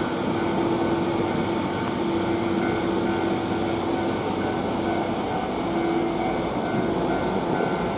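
Steady drone of an air-conditioned Sangi Railway railcar standing at a station: the cooling unit and the car's running equipment, with a steady hum tone that fades a little midway.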